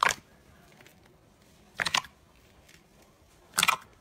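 Slime being pressed and folded by hand: three short crackling pops of trapped air, each about a quarter of a second, about two seconds apart.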